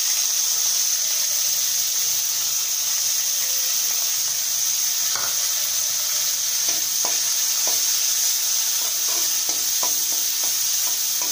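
Sliced onions sizzling steadily in hot oil in a kadai. From about halfway, a spatula stirs them, with short scrapes and taps against the pan.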